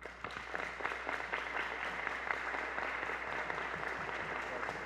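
Crowd applauding: many rapid overlapping claps that break out all at once and hold steady.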